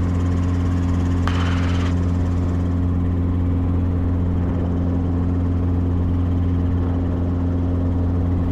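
Small two-seat helicopter in flight heard from inside the cabin: a steady low drone of engine and rotor with a constant hum. A brief hiss comes in about a second in.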